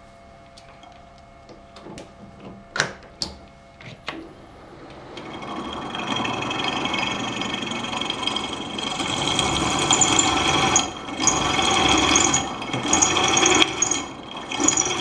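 A few knocks as the drill is set up, then about five seconds in a drill starts and runs with a steady whine. It is boring out the remains of a broken stud in an aluminium oil housing to thread-insert size, cutting into the aluminium as well as the steel, and it eases off briefly a couple of times.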